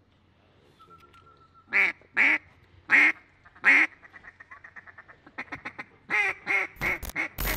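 Loud mallard quacking: four spaced quacks, then a quick run of short clucks, then another rapid string of quacks, with two sharp clicks near the end.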